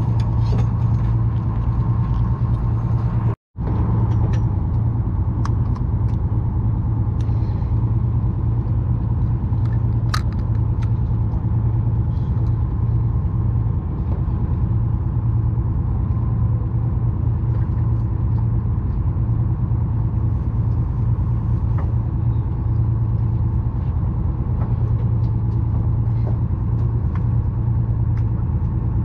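Charter fishing boat's engine running with a steady low drone, cutting out for an instant about three and a half seconds in.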